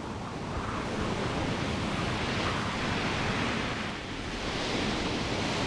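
Rough open sea: waves surging and breaking in a steady rushing that swells after the start and dips briefly about four seconds in.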